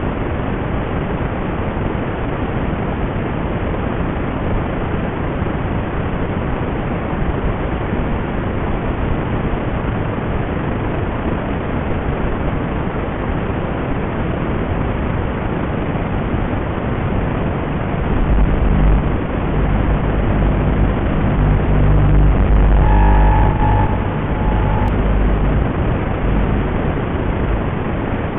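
Steady hiss of static from the analog FPV video receiver's audio channel, with no flight sound in it. About two-thirds of the way through a heavier low rumble comes in, and a short steady high tone sounds for about two seconds near the end.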